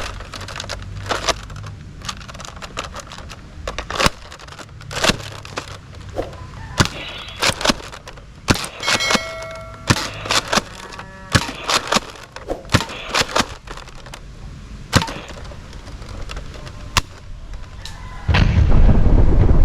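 Irregular sharp plastic clicks and knocks as a Nerf Delta Trooper toy blaster is handled. A loud low rumble starts near the end.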